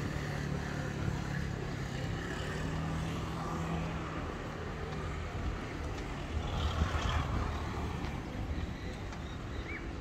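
Street traffic: car engines running, with a vehicle passing loudest about six to seven seconds in.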